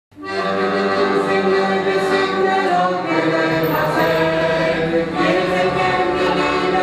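Choir singing held, sustained chords as music, fading in quickly at the start.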